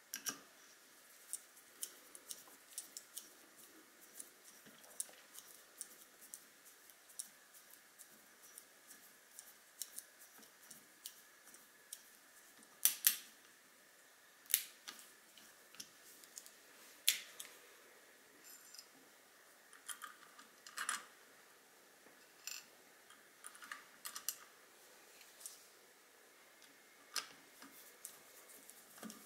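Irregular small metallic clicks and taps as a hex key works the cap screws of rifle scope rings and small screws are handled, with a few louder clicks among them.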